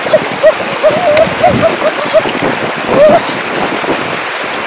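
Shallow rocky stream running, a steady rush of water with frequent quick gurgles and bubbling, and splashing as feet wade through it.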